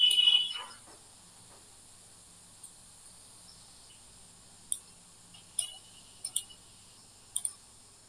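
A shrill, steady whistling tone for under a second at the start, then low hiss broken by about six sharp computer-mouse clicks in the second half.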